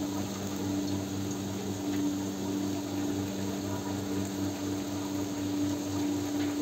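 Steady motor hum with a low throb pulsing about four times a second, over a faint hiss from food frying in an iron wok.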